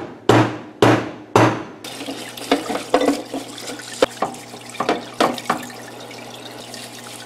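Small hammer tapping a steel pinion gear onto an electric motor's shaft, three sharp blows about half a second apart, driving it on as a press fit. Just before two seconds in these give way to a parts washer: solvent running from its nozzle over a steady low hum, with a brush scrubbing a gearbox housing.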